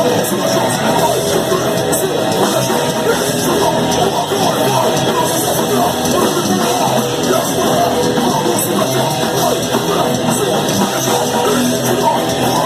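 Speed/thrash metal band playing live: loud distorted electric guitars and drums, with vocals over them.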